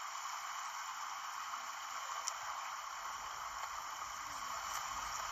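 Steady hiss of noise, with a faint tick about two seconds in and another near the end.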